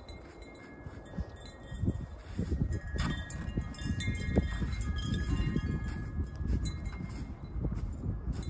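Wind chimes ringing, several tones sounding and overlapping, over wind on the microphone and the crunch of footsteps in snow.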